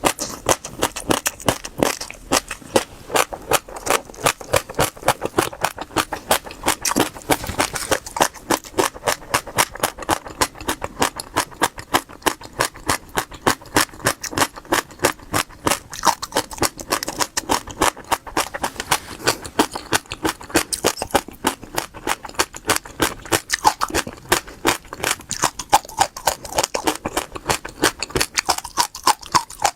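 Seeds crunched between the teeth and chewed close to the microphone, a rapid, steady run of crisp cracks.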